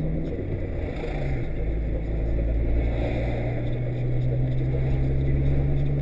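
Car engine drone and road rumble heard inside a moving car's cabin: a steady low hum that drops in pitch just after the start, then holds steady from about a second and a half in.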